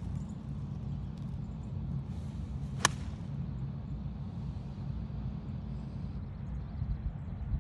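A golf club striking the ball off the tee: one sharp click about three seconds in, over a steady low rumble.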